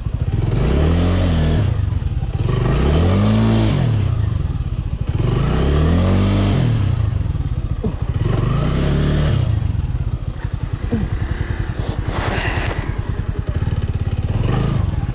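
Single-cylinder 200 cc motorcycle engine revved hard four times in a row, each rev climbing and then dropping back, while the bike works over rough off-road ground. It then runs lower and steadier, with a few clattering knocks about eleven to twelve seconds in.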